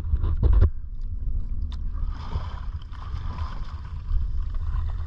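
Water lapping and splashing around a small wooden outrigger canoe being paddled, with wind rumbling on the microphone. A brief clatter about half a second in.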